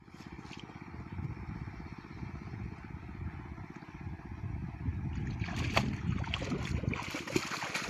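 A small engine running steadily with a fast low pulse throughout. From about five and a half seconds in, water splashes sharply over it.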